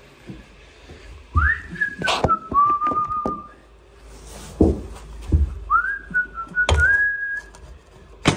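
A man whistling two short phrases, each beginning with an upward slide and then holding a few steady notes, with several sharp knocks from handling as he moves.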